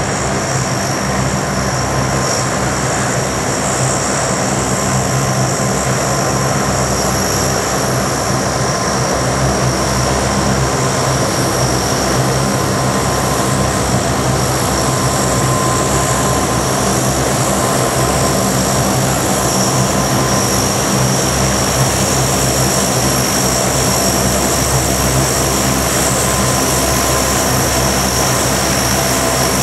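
Four Allison T56 turboprop engines of a P-3C Orion running at taxi power as the aircraft taxis, a steady low propeller drone with a high turbine whine over it.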